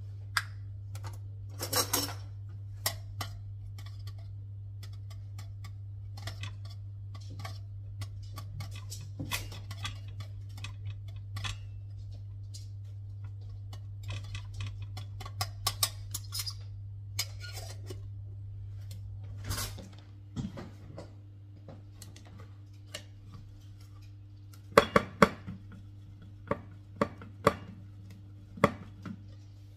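Dishes and cutlery clinking and knocking, dozens of scattered sharp clicks with a cluster of louder knocks near the end, over a steady low hum that changes about two-thirds of the way through.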